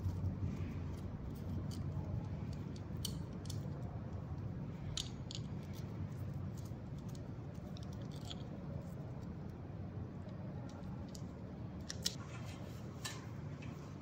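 Scattered light clicks and small handling noises from bike parts and tools being worked by hand, over a steady low hum. A few clicks come in pairs, with a cluster near the end.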